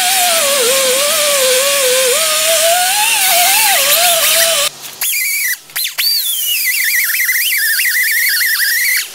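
Air-powered angle grinder with a small abrasive disc whining as it scours a wheel hub's face; its pitch wavers up and down as the disc is pressed and eased against the metal. It cuts out just under five seconds in, then starts again at a higher pitch that drops and wavers under load.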